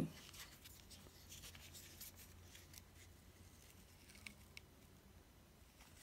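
Near silence with faint handling noise: fingers rubbing and small clicks from an aluminium card-holder wallet being turned over in the hands, with two small ticks a little after four seconds in.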